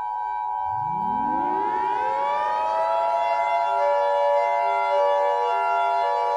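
Civil defense siren winding up: it starts low about a second in, rises in pitch over a few seconds, then holds a steady wail. Under it runs the steady two-tone Emergency Alert System attention signal that announces an alert.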